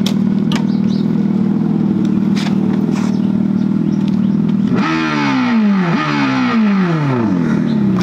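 Revolt RV400 electric motorcycle's built-in speaker playing its artificial engine sound on the standing bike: a steady idle-like hum, then about three revs in the second half whose pitch jumps up and falls away.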